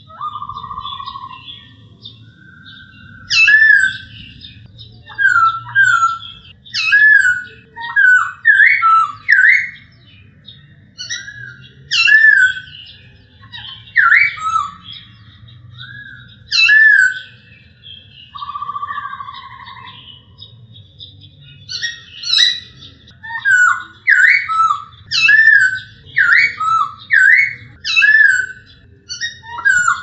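Male black-throated laughingthrush singing: loud, clear whistled phrases of rising and falling notes, repeated with short pauses and coming faster in the last third.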